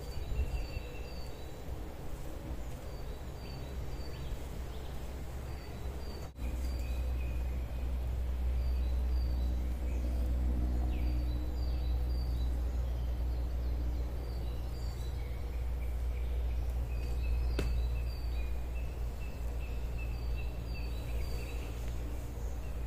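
Outdoor woodland ambience: a steady low rumble, louder from about six seconds in, with small birds calling in short, repeated high chirps.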